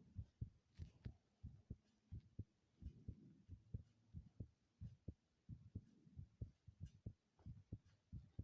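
Heartbeat: a quick, even run of paired low lub-dub thumps, with a soft whoosh between some of the beats.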